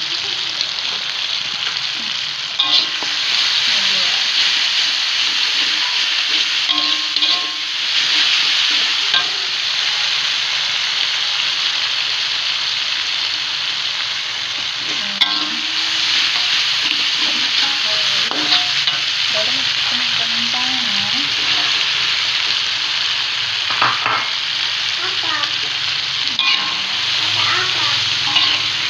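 A chili and shallot spice paste sizzling in hot oil in a pan while being stirred, with a steady frying hiss and occasional scrapes and clicks of the spatula against the pan.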